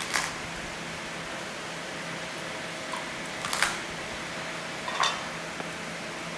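Three short, sharp taps of a chef's knife on a wooden cutting board while garlic cloves are worked open with the knife tip, the loudest about three and a half seconds in. Underneath is the steady hum of a fan.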